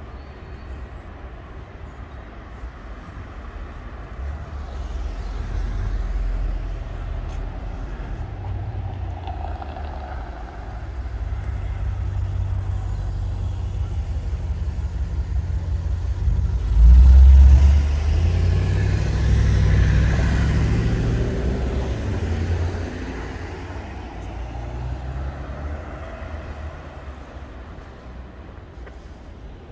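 City street traffic: engine rumble of passing vehicles, swelling to its loudest as a heavy vehicle goes by about two-thirds of the way through, with tyre noise, then fading away.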